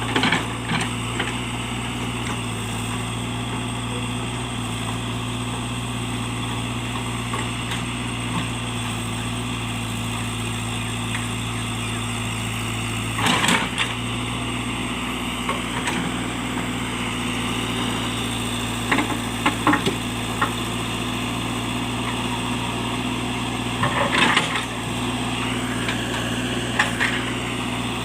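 JCB backhoe loader's diesel engine running steadily, with a handful of short, loud knocks and cracks from the machine working: one about a second in, one about halfway, and a cluster in the last third.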